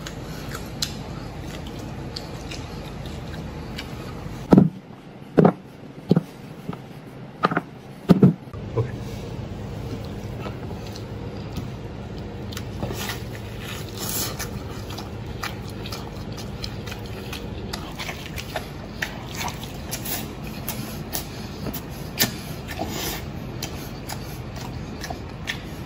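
A person eating braised pork elbow close to the microphone: chewing and mouth sounds, with five loud short smacks between about four and eight seconds in and small wet clicks scattered through the rest.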